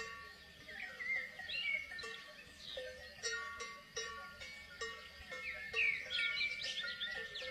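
Bells on grazing livestock clanking irregularly, each strike ringing on, with birds chirping.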